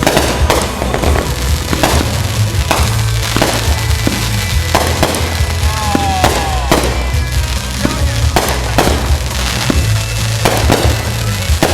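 Fireworks going off in a rapid, continuous string of bursts and bangs, with music playing underneath.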